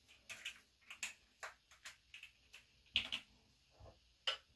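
Quiet, irregular clicks and small taps from close handling, a dozen or so, with the loudest about three seconds in.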